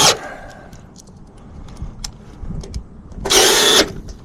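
Cordless drill briefly driving screws, two short runs of about half a second (one at the start, one a little over three seconds in), with light clicks and taps between them, as a rooftop HVAC unit's access panel is screwed back on.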